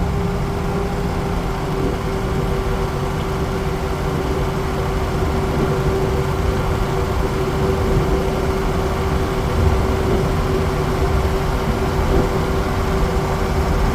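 Ford E350 van with a 6.0 Power Stroke turbodiesel V8 cruising at highway speed, heard from inside the cab: steady road and engine noise with a constant hum.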